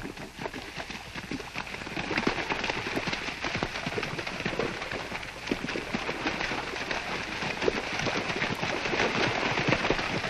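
Many feet splashing through shallow water as a line of people wades across a stream: a dense, irregular patter of splashes that grows louder about two seconds in.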